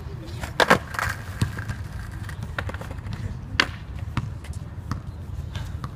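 Sharp knocks of a skateboard on concrete: two loud hits close together about half a second in, a few lighter taps, and another hit a few seconds later, over a steady low rumble.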